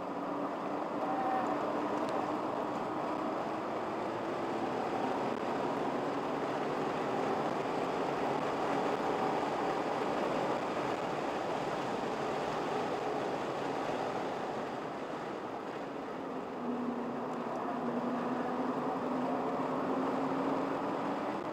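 Car engine with tyre and wind noise heard from inside the cabin while driving hard on a race circuit. The engine note eases off briefly about 16 seconds in, then climbs again as the car accelerates.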